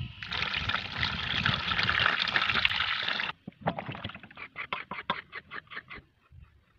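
Water pouring into a stainless steel basin for about three seconds and stopping abruptly, then quick splashing and swishing strokes, a few a second, as vegetables are rubbed clean in the water.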